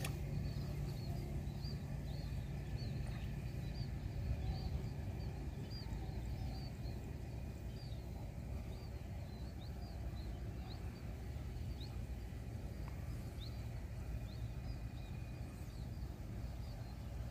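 Outdoor ambience by a rice-field irrigation canal: a steady low rumble, with small high-pitched animal chirps repeating about twice a second over it.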